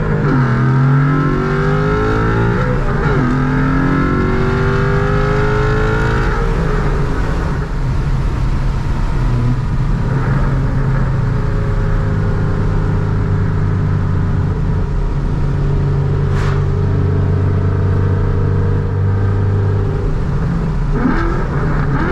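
Ford Mustang Boss 302's 5.0-litre V8 with long-tube headers and a side-pipe exhaust, accelerating hard from a roll. The engine note climbs and drops at two gear changes a few seconds apart, then settles into a steady drone, with another shift near the end.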